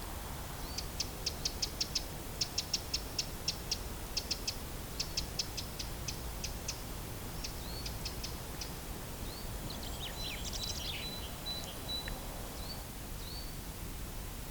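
Wild birds calling: quick runs of sharp high ticks, about five a second, for the first half, then a few short rising whistles and a jumbled twittering with a thin held high note lasting over a second. A soft steady outdoor hiss lies underneath.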